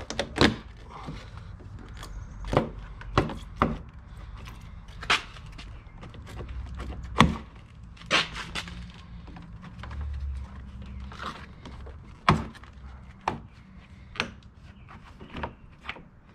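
Plastic retaining clips of a 2015 Ford F-150's headlight trim bezel snapping and popping loose as the piece is pried off by hand: a dozen or so sharp snaps and knocks at irregular intervals.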